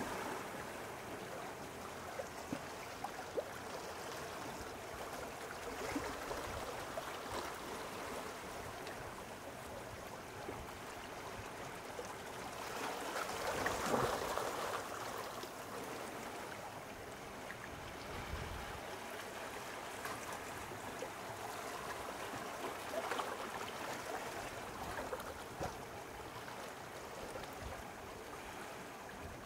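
Small sea waves lapping at the shore in a steady wash of water, swelling to one louder surge about halfway through.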